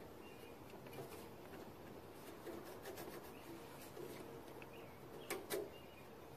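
Faint small metal clicks and taps as a washer is worked onto the steel pivot rod of a garden-tractor plow hitch, with two sharper clicks a little past five seconds in.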